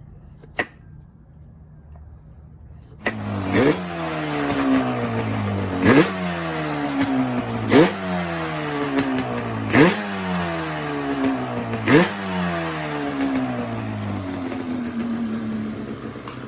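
Yamaha Banshee's twin-cylinder two-stroke engine, coming in about three seconds in and blipped five times, about two seconds apart: each rev jumps up quickly and falls slowly back, then it settles to idle near the end. The throttle blips check that the twin carburetors open together after being synchronized.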